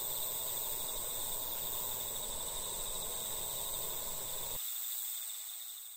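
Crickets trilling steadily, with a low, even background noise underneath that cuts off abruptly about four and a half seconds in. The trilling then fades out near the end.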